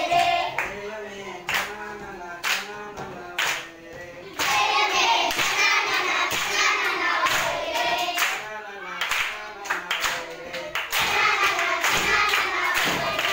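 Children singing a song together, clapping along about once a second.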